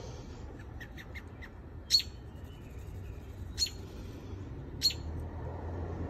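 Short, sharp bird chirps: a few faint high peeps about a second in, then three louder chirps spaced a second or more apart, over a low steady rumble.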